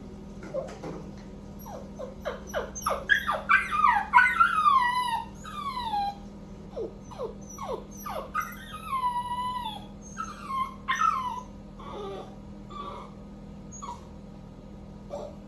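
Cockapoo puppy whining and crying at being left alone: short high whimpers build into longer wails that fall in pitch about three to five seconds in, come again a few times, then thin out into fainter whimpers near the end.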